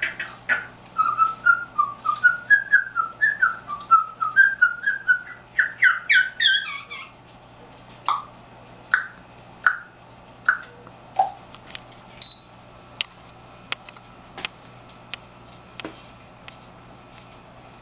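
African grey parrot whistling: a quick run of short whistled notes that climbs in pitch over about six seconds, then single chirps and clicks about once a second.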